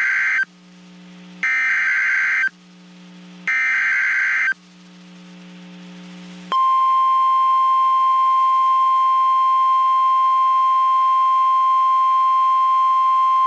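NOAA Weather Radio Emergency Alert System signalling: three short bursts of screechy SAME digital header data about a second apart (the first already under way), then about six and a half seconds in the steady single-pitch 1050 Hz warning alarm tone starts and holds. It announces a new warning being broadcast, here a severe thunderstorm warning.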